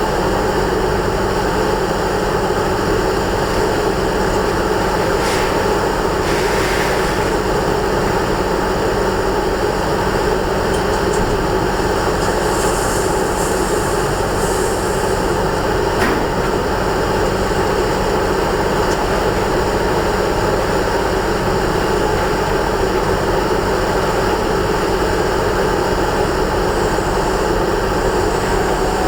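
1986 Ford F-350 pickup with a 460 V8 driving at a steady speed while towing a loaded dump trailer: a steady mix of engine and road noise.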